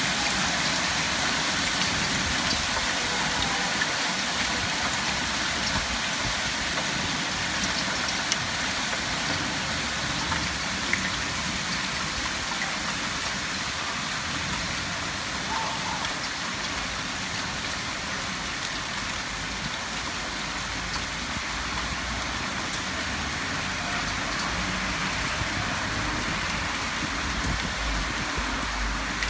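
Hail and heavy rain pelting a paved street: a steady dense hiss with scattered small clicks of hailstones. Near the end a car drives past, adding a low rumble.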